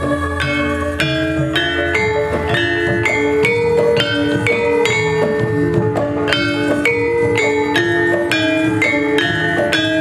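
Javanese gamelan ensemble playing: bronze keyed metallophones (saron) struck with mallets in a steady ringing melody, a few strikes a second, over a low sustained gong hum.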